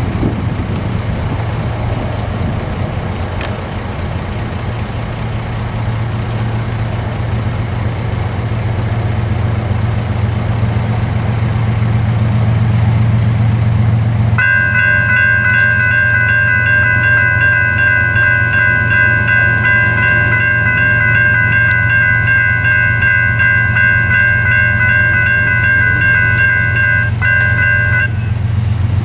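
A steady low rumble, most likely the approaching freight train, swells slightly. About halfway in, the crossing's two Type 3 electronic bells (Safetran and General Signals) start ringing steadily as the signals activate. They fall silent about a second before the end, once the gates are down.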